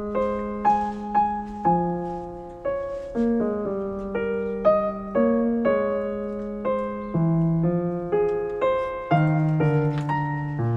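Background music: a calm solo piano playing a slow, flowing melody over held bass notes.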